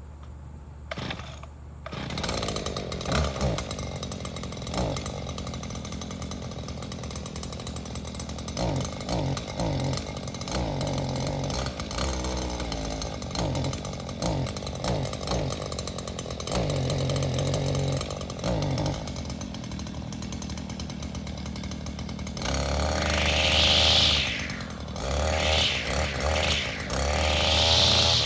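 Small two-stroke power-tool engine pull-started, catching about two seconds in and running with repeated throttle blips that rise and fall in pitch. From about three-quarters of the way through it is revved harder and louder several times.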